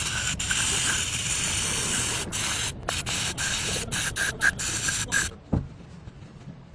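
Pressurised spray hissing: one long continuous spray, then a quick run of short bursts, stopping about five seconds in. A single low thump follows.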